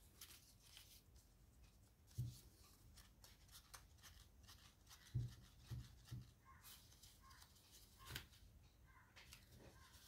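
Faint rustling and crinkling of folded paper as an origami fidget toy is flexed and transformed in the hands, with a handful of soft thumps scattered through it.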